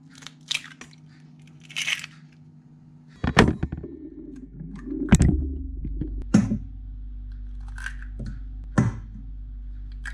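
Eggs being cracked on the rim of a stainless steel bowl: a string of sharp knocks and shell cracks every second or two as the shells break open. A low steady hum comes in about three seconds in.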